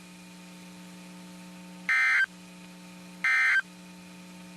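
Emergency Alert System end-of-message signal: short, buzzy two-tone digital data bursts about 1.3 seconds apart, two of them, with a third starting at the very end. They mark the close of the tornado warning. A steady low hum from the broadcast lies underneath.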